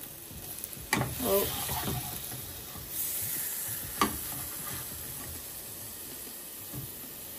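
Chicken curry sizzling gently in a non-stick pot as it is stirred with a ladle, with sharp clicks of the ladle against the pot about a second in and again about four seconds in.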